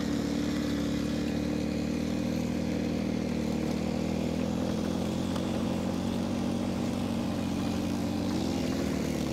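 ATV engine running at a steady speed while being ridden, heard close up from on the machine itself. The pitch dips slightly near the end.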